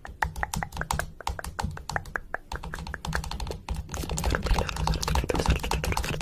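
Rapid, irregular clicking and tapping, many clicks a second, growing denser and noisier in the second half.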